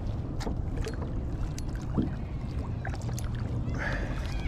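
Wind rumbling on the microphone and lake water lapping against a kayak hull, with scattered light clicks and a short splash near the end.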